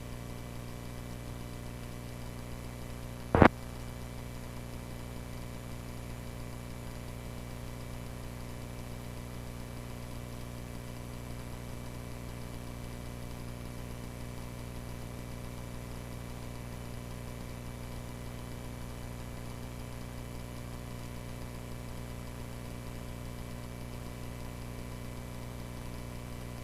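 Cessna 140A's engine drone, heard as a steady hum through the cockpit audio feed between radio calls. A single short, sharp click about three and a half seconds in.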